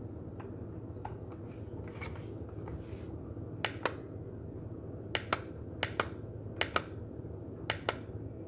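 Plastic buttons on a Timex battery alarm clock pressed five times in about four seconds, each press a sharp double click, while the alarm time is being set.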